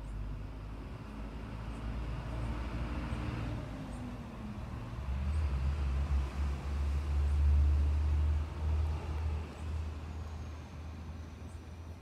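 Low rumble of passing road traffic, swelling through the middle and easing off toward the end, with faint short high ticks about once a second.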